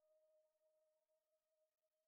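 Near silence: a gap between spoken words, with only an extremely faint steady electronic hum.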